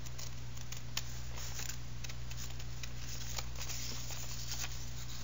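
Scissors cutting through newspaper: a run of short, irregular snips as the paper is cut along a drawn outline.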